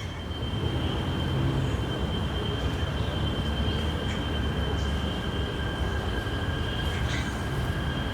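One long, slow, steady inhale close to the microphone, a rushing breath sound with a low rumble, held through the whole stretch of a qigong breathing cycle.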